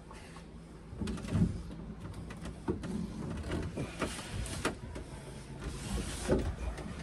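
Handling noise as a stiff green corrugated plastic hose is worked into a mug of hot water to soften its end: irregular knocks, clicks and scrapes of hose, mug and hands against the timber floor bearers, the loudest knocks about a second and a half in and near the middle.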